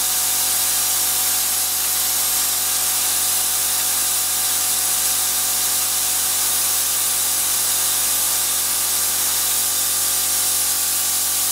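Compressed air hissing loudly and steadily from a nozzle aimed at a pin-tumbler euro cylinder lock, where the air blast puts turning tension on the plug while the pins are picked.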